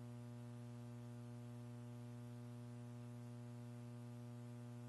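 Steady mains hum on the audio line, a low buzz of many even tones with a faint hiss, unchanging throughout.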